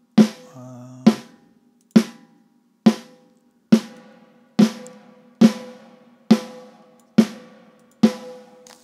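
Recorded snare drum, picked up by a single inexpensive CAD microphone over the snare, played back as a steady beat of single hits a little under a second apart. A reverb plug-in is inserted directly on the snare channel, and from a few seconds in the hits ring out with longer tails.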